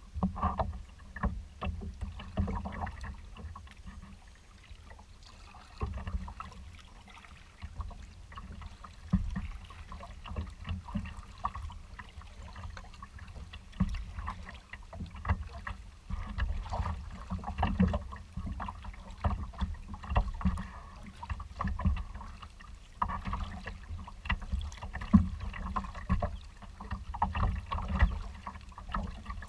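Choppy water sloshing and slapping against a moving kayak's hull in irregular splashes, over a gusty rumble of wind on the microphone.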